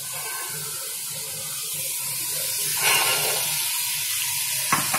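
Onion-tomato masala frying in oil in a steel pot, a steady sizzling hiss. About three seconds in, boiled chickpeas are tipped in and the sizzle grows louder. A single click comes near the end.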